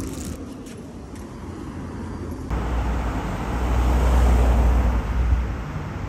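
Road traffic outdoors: after a quieter start, a vehicle passes close by, a low rumble with tyre noise that swells to a peak and then eases off.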